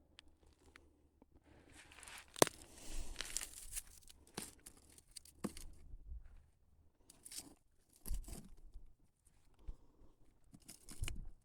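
Footsteps crunching on a dry trail, irregular and roughly one a second, with a sharp click about two and a half seconds in.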